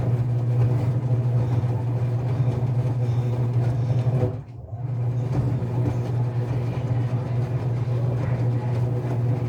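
Enxuta Euromatic washing machine running with a steady motor hum, which cuts out for about half a second halfway through and then starts again.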